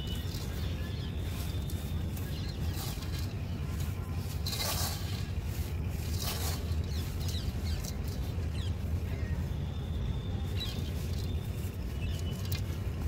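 Dry crushed mud powder pouring from a hand into a basin: a soft hiss and patter of falling grains, with a louder rustle about five seconds in, over a steady low background rumble.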